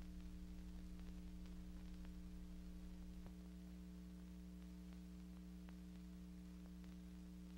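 Near silence: a steady electrical hum with a few faint, scattered clicks. A low flutter beneath the hum stops about three seconds in, leaving a steadier low hum.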